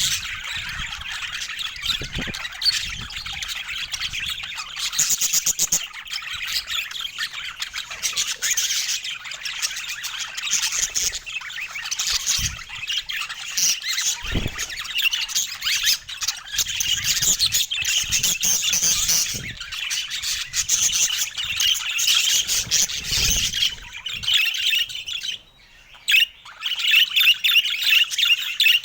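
Budgerigars chattering with dense, continuous high-pitched chirps, breaking off briefly near the end.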